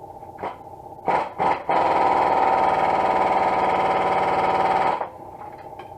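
Impact wrench hammering on an exhaust manifold bolt: two short blips, then a run of about three seconds that stops suddenly.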